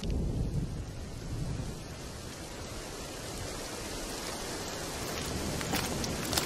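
Steady rain falling, with thunder rumbling low over the first couple of seconds. Near the end a few sharp footsteps begin.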